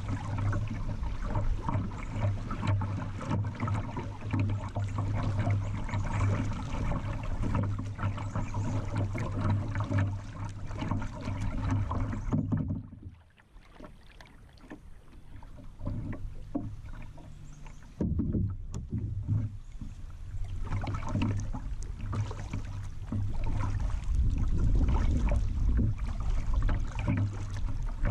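River water rushing and splashing against a kayak's hull as it moves downstream, with paddle strokes dipping into the water. The sound drops away sharply near the middle, stays quieter for several seconds, then comes back at full strength.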